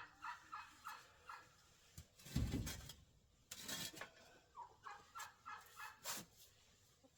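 Poultry calling in a quick run of short notes, about three a second, that stops about a second in. A loud, deep thump follows, then a few sharp knocks and scrapes.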